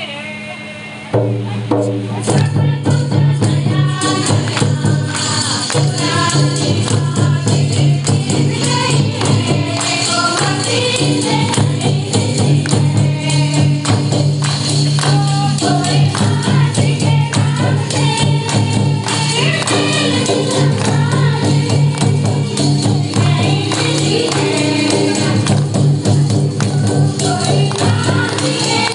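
Group of women singing a Ho-language Christian devotional song (Hod bhajan) to two-headed barrel drums and jingling percussion, with a steady low note underneath. The full ensemble comes in loudly about a second in.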